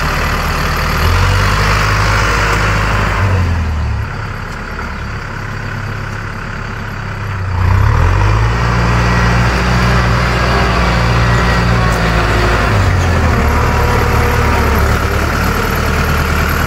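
Farm tractor's diesel engine working under load as it pulls a disc plough through dry soil. The engine drops away about four seconds in and comes back louder just before eight seconds, its pitch shifting as the load changes.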